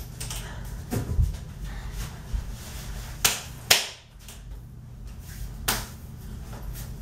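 Hands clapping and slapping together in a two-person clapping handshake routine. There are a few sharp claps spaced unevenly, with two close together a little past three seconds in, over a low steady hum.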